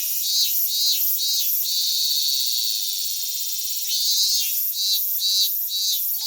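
Insects chirping in a high-pitched, pulsing chorus, about three pulses a second, turning into a steady trill for a couple of seconds in the middle before the pulses return.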